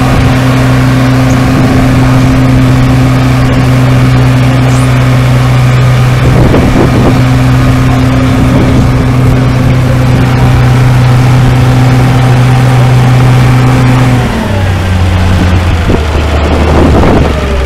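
Antique tractor's engine running hard at a steady, high throttle while dragging a weight-transfer sled in a tractor pull. About fourteen seconds in the engine note drops as the throttle comes back at the end of the pull, then steps lower again a couple of seconds later.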